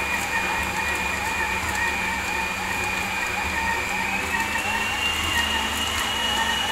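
Croun 10-litre stand mixer running, its motor giving a steady high whine that rises slightly in pitch about four seconds in.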